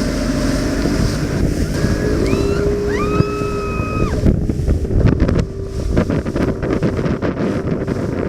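Motorboat engine running over rushing water, with wind buffeting the microphone from about four seconds in. A short high held tone, with a few brief rising calls, comes around the three-second mark.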